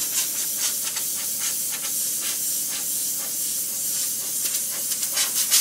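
Spray gun hissing as it sprays a water rinse over a freshly spray-chromed panel, the hiss surging briefly many times.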